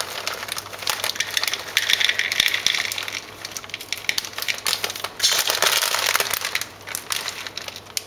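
Chocolate chips being poured from a crinkling plastic bag into a measuring cup, an uneven clatter of small hard pieces in spells with bag rustle.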